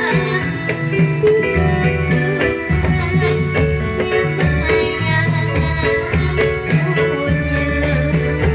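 Dolalak folk music: a melody over percussion, keeping a steady repeating beat.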